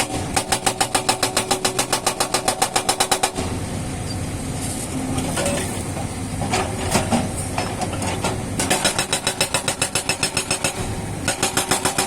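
Hydraulic rock breaker on an excavator hammering rapidly, about eight blows a second. It pauses for about five seconds after the first three, leaving the excavator's engine running with a few knocks, then hammers again.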